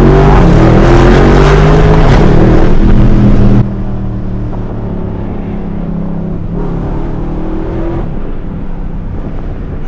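SRT Jeep Grand Cherokee's V8 heard from inside the cabin: it pulls hard with the engine note rising for about three and a half seconds, then drops off sharply as the throttle is released. It then runs on more quietly at a steady cruise, with a brief light pick-up of throttle near the end.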